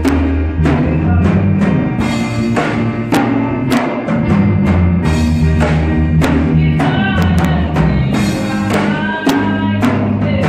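Live church worship music: a woman singing lead into a microphone over a drum kit and a band with sustained low bass notes.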